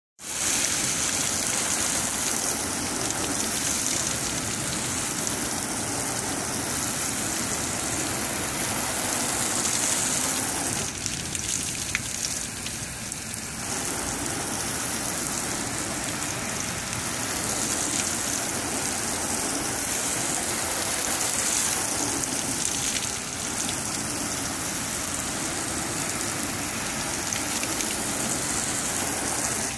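Garden hose spray nozzle spraying water onto a pickup truck's hood and windshield: a steady hiss of spray pattering on the painted metal and glass, briefly softer about eleven seconds in.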